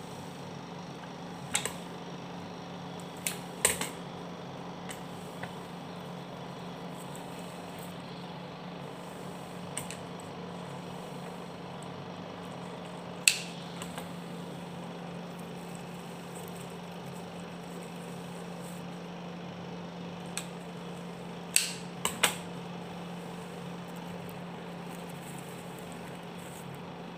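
Occasional sharp snips of florist's scissors cutting flower stems, several seconds apart and sometimes in quick pairs, the loudest about halfway through, over a steady low hum.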